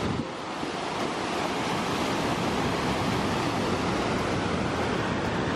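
Whitewater of the Merced River rushing over boulders in a steady, dense rush of noise.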